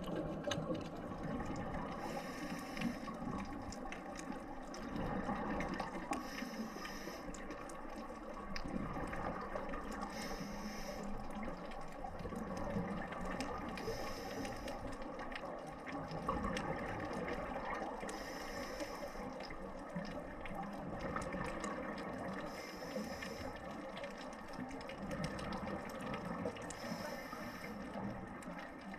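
Scuba diver breathing through a regulator underwater: a short burst of exhaled bubbles about every four seconds, over a steady muffled wash of water.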